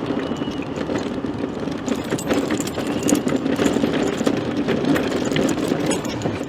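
Mobility scooter driving across a road: a steady motor hum with frequent clicking and rattling from the scooter over the surface.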